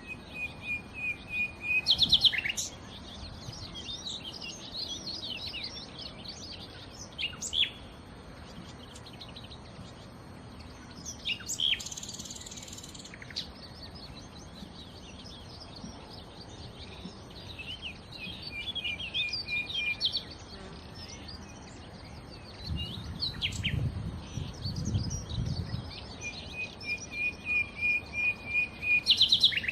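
Nightingale singing in phrases of rapidly repeated notes, trills and whistles, with short pauses between phrases. A brief low rumble sounds about three-quarters of the way through.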